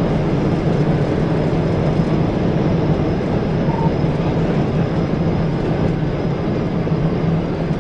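Police cruiser at about 140 mph: a steady rush of wind and road noise over a low engine drone. A short faint beep sounds about four seconds in.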